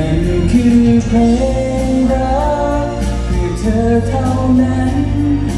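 A man singing a melody into a handheld microphone, amplified through a stage PA over accompanying music with bass and a steady drum beat.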